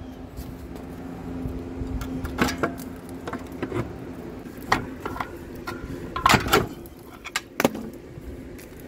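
Scattered metal clanks and knocks as the rear drum-brake shoes of a semi truck are worked loose by hand, lifted at the top and pulled down at the bottom off the axle's brake spider. The loudest pair of clanks comes about six seconds in, over a low steady hum.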